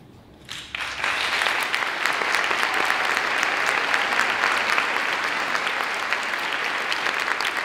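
An audience breaks into applause about half a second in and keeps clapping steadily.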